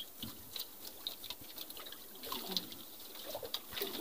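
Faint patter and lapping of sea water against the hull of a small outrigger fishing boat, with scattered light clicks.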